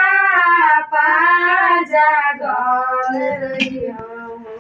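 A woman singing without instruments, holding long, wavering notes, the voice growing weaker in the last second or so.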